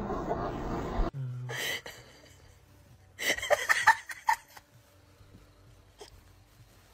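A person giggling and snickering, stifled and in short bursts, for about a second and a half starting about three seconds in. Before that, dense voice-like sound cuts off abruptly about a second in.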